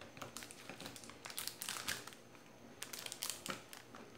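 Kitchen knife chopping a block of white compound chocolate on a glass plate: clusters of sharp cracks and taps as pieces break off, bunched about a second and a half in and again near three seconds.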